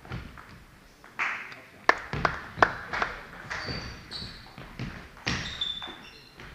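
Table tennis rally: celluloid-type ball struck by rubber bats and bouncing on the table, a quick run of sharp clicks, then a few scattered bounces as play stops. A few short high squeaks come in between.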